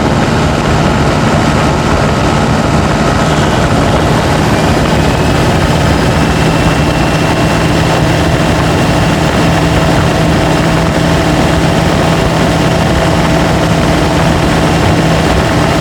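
Turbodiesel pickup engine pulling under load on a steep climb, picked up by a microphone under the hood: a loud, steady drone with a thin high turbo whistle running over it from about four seconds in.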